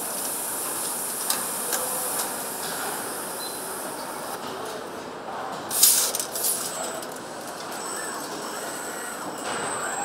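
Assembly-line machinery in an engine plant: a steady mechanical hum and hiss with a few light clicks, and a short, loud hiss about six seconds in.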